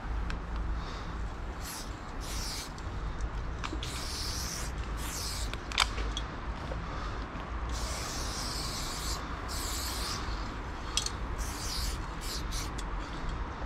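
Loop Colors aerosol spray paint can spraying in a dozen or so separate bursts of high hiss as lines are painted, mostly short strokes with one longer hiss of about a second and a half just past the middle. A single sharp click a little before the middle is the loudest sound.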